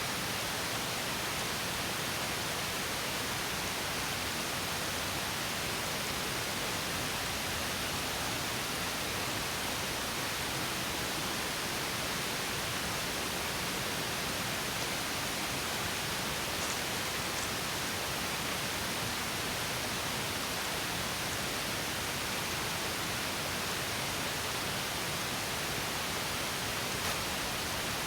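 Small stream spilling over a mini waterfall: a steady, even rush of water.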